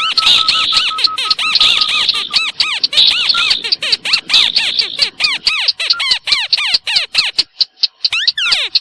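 A hand-blown 'tikusan' bird-lure call squeaking in a rapid series of high chirps, several a second, with a thin steady whistle under it at first. After about five seconds the chirps come faster and more broken, and a few downward-sliding squeals come near the end.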